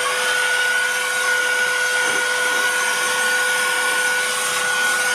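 Cordless battery-powered air duster running flat out as a blower, a steady high-pitched whine over rushing air as it blows wet leaves.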